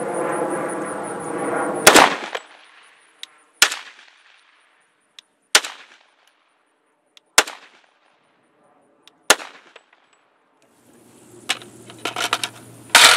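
Five single shots from a 300 Blackout AR pistol with a 10-inch barrel, fired at an even pace about two seconds apart, each ringing out briefly. A steady droning hum runs under the start and fades after the first shot. Metallic clicks and clatter follow near the end.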